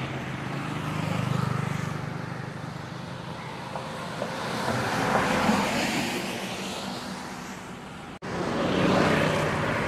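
Road traffic passing on a wet highway: vehicles swell up and fade away one after another, engine hum under tyre hiss. The sound cuts out for an instant a little after eight seconds in.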